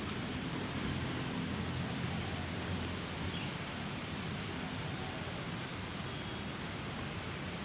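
Steady ambient noise on a commuter-rail station platform: an even hiss over a low hum, with no distinct events.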